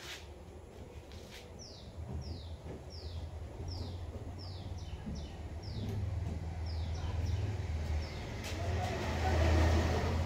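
A bird calling with a series of short, falling whistled notes, about two a second, over a low rumble that grows louder near the end.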